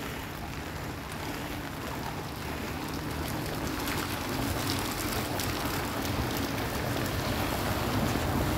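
Steady rain falling on wet stone paving, with a box truck's engine idling underneath as a low hum that grows a little louder toward the end.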